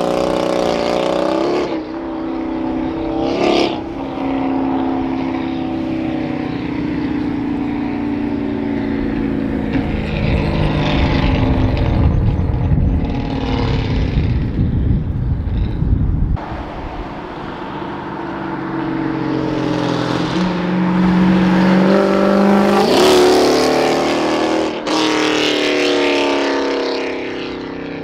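V8 car with a full aftermarket performance exhaust driving by under throttle. A deep exhaust rumble swells loud about halfway through and cuts off suddenly. It then builds again with rising revs near the end.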